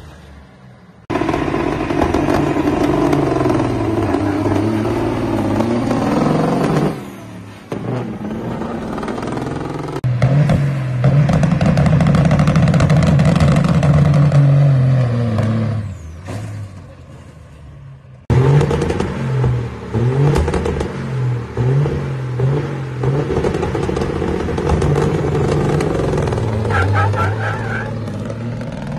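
Diesel semi truck's engine at full throttle under hard acceleration. The pitch climbs and drops as it goes through the gears, in several separate runs that start and stop abruptly.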